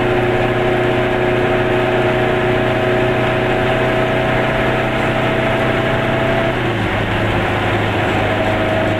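Car engine running steadily at cruising speed, heard from inside the cabin over a hiss of tyres on the road; its note drops a little about seven seconds in.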